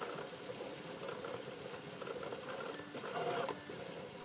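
3D printer running: its stepper motors whir steadily as the print head moves across a PLA print, with briefly shifting tones a little after three seconds in.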